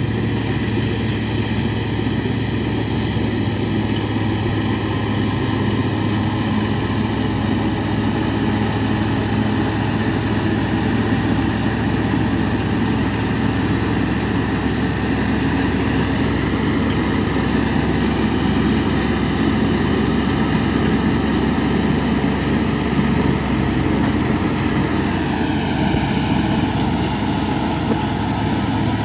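New Holland 6010 tractor engine running steadily under load while driving a PTO-powered straw reaper, with the machine's high whine on top of the engine drone. About 25 seconds in, the whine dips slightly lower.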